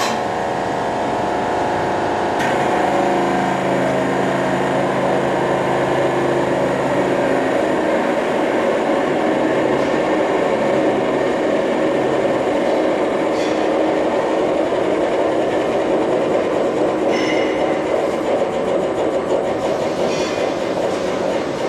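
Hydraulic pump unit running steadily to clamp the mold on a Pascal TYA hydraulic mold clamp. A whine of several tones sits under the noise for the first eight seconds or so, then fades. A few faint clicks come later.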